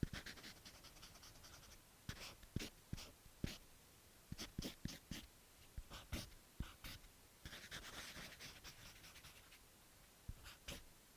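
Permanent marker doodling on paper: short scratchy strokes and squeaks of the felt tip, with a few longer drawn-out passes.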